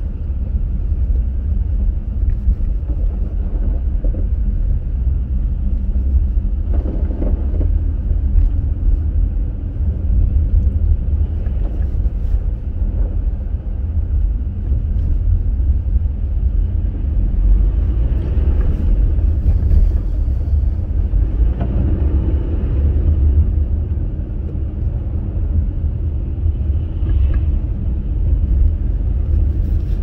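Steady low rumble of engine and tyre-on-snow road noise inside the cabin of a Subaru Crosstrek on Blizzak winter tyres, driving along a snow-covered road.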